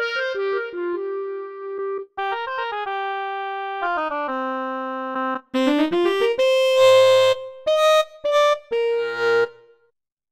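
Korg Krome synthesizer workstation playing short demo phrases of its preset sounds: melodic note runs, then about halfway through a note slides up in pitch into a few short, chopped chords that cut off abruptly.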